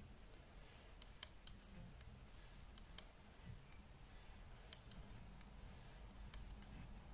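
Faint, irregular clicks of 5 mm Knit Pro knitting needles tapping together as a row is purled.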